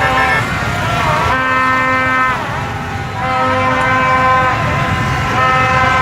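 Plastic fan horns blown in long, overlapping notes, some wavering in pitch, over the steady rumble of motorbike and car traffic.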